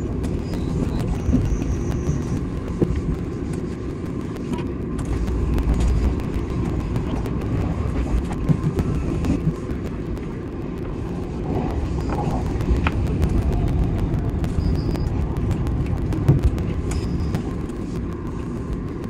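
Running noise of an Odakyu 8000 series electric train heard from the driver's cab, fast-forwarded: a dense, steady rumble with many quick clicks and a few brief high tones.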